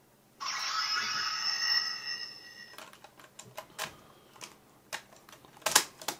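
Electronic sound effect from a Power Rangers toy's speaker, a set of steady high tones lasting about two seconds, followed by a run of sharp plastic clicks and rattles as a yellow card is slid into the slot of a toy gun.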